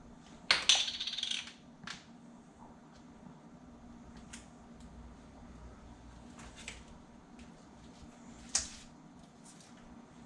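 Kitchen handling noises as fish is stuffed with herbs: a rustle lasting about a second near the start, a few light clicks, and a sharp clink with a short ring near the end, over a faint steady hum.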